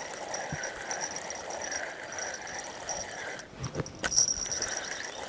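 Spinning reel on a feeder rod being wound in steadily to check a bite, with a few handling knocks around four seconds in.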